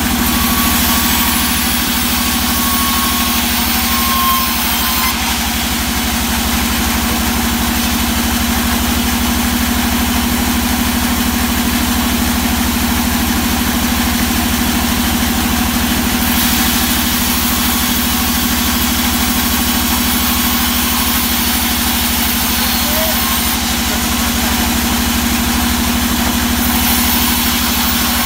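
Large sawmill band saw running steadily while ripping a plank of old teak lengthwise. A constant hum with fast low pulsing from its drive sits under the hiss of the blade in the wood, and the hiss brightens and dims a few times as the cut goes on.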